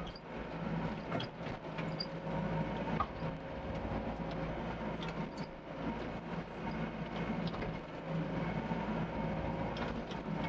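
Doosan DX55 mini excavator's diesel engine running steadily under work, with scattered metallic clanks and rattles from the machine as it digs and moves.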